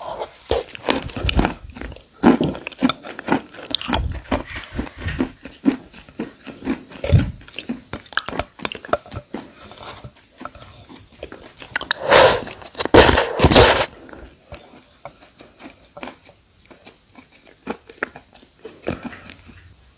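Brittle white clay chunks ('broken slate stone') being bitten and chewed: a run of sharp crunches and chews, with three loud crunching bites about twelve to fourteen seconds in, then softer chewing toward the end.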